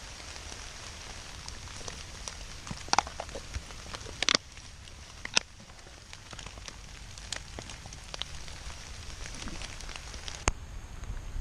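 Steady rain falling, an even hiss with scattered louder drops striking a surface as sharp ticks.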